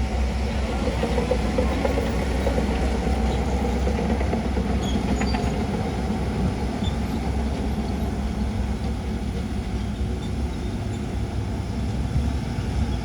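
Diesel engine of heavy earthmoving machinery running steadily with an even low drone.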